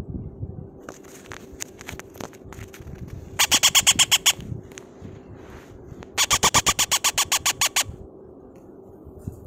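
Parrot chick giving rapid, rhythmic begging calls, about nine pulsed chirps a second, in two bursts of about a second each as its hand-feed is readied in a syringe. Light clicks of handling come between them.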